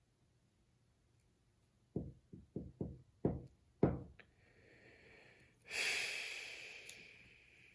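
Board game cards and pieces handled on a tabletop: about six quick knocks in two seconds, then a louder rustling swish that fades over a second or so.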